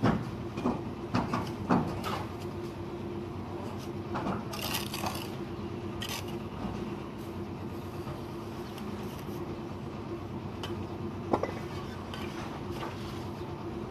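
Bricklaying work: hard clinks and knocks of bricks and a trowel, a quick cluster of them in the first two seconds, then brief scraping sounds and a single knock near the end.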